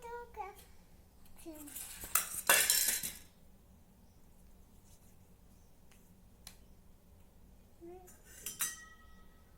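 Kitchenware clinking and clattering. A loud clatter comes about two to three seconds in, then a few light knocks, and near the end a clink rings on with a clear tone.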